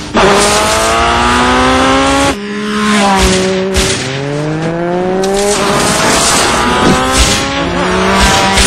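Motorcycle engines revving hard and accelerating, the pitch climbing over a second or two, dropping and climbing again several times, as through gear changes.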